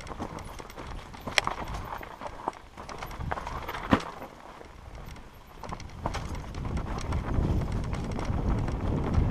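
Mountain bike descending a rough dirt and rock trail: tyres rolling over the ground with the bike rattling and sharp knocks over bumps, the two hardest about a second and a half and four seconds in. A low rumble builds over the last three seconds.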